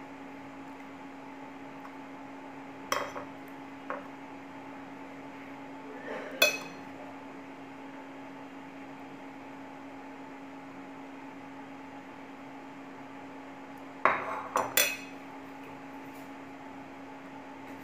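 Ceramic dishes and a metal spoon clinking and knocking together as food is served: single clinks about three, four and six seconds in, then three quick knocks near the end. A steady low hum runs underneath.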